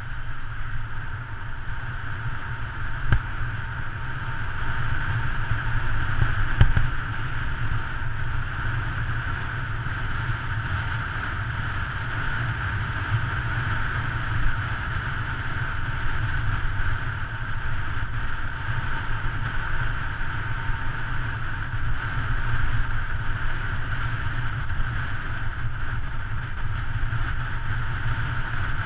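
Wind buffeting the microphone of a bicycle-mounted action camera on a fast road descent: a steady low rumble with a band of hiss above it. A few short knocks come through, the sharpest about six and a half seconds in.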